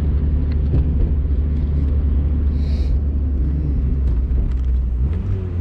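Mazda Miata's four-cylinder engine running steadily at an easy pace, a low rumble heard from inside the open-top cockpit, with road and wind noise.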